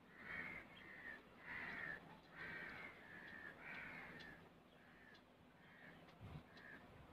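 Crow cawing over and over, faintly, the calls coming thick in the first few seconds and growing fainter and sparser after about four seconds.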